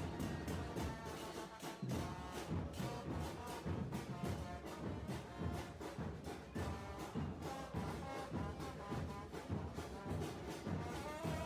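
Music led by brass instruments over a steady drum beat.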